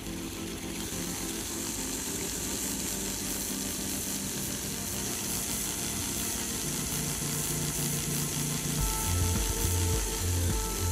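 Small DC motor running steadily, turning a homemade truck's rear axle through a driveshaft and spur gears, with a steady whirring gear noise.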